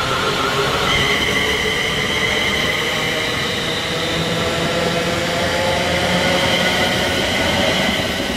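A Class 350 Desiro electric multiple unit passes at speed. Its wheels run on the rail, and a steady high whine joins in about a second in.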